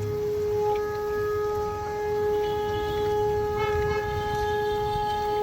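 A steady, unbroken tone with a few overtones, holding one pitch, over a low rumble.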